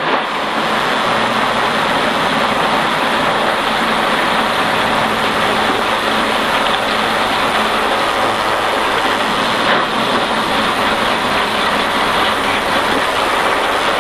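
Stock race car's V8 engine, tyres and wind heard from inside the cockpit: a loud, steady wash of noise as the car runs down onto pit road.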